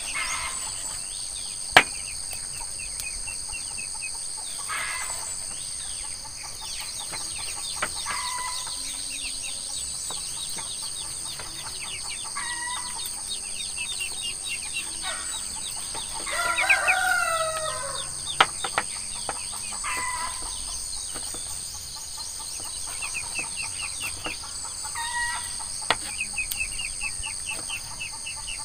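Chickens clucking and calling at intervals, with a rooster crowing about two-thirds of the way through, over a steady high-pitched insect drone. A few sharp knocks of a knife cutting pork on a wooden chopping block.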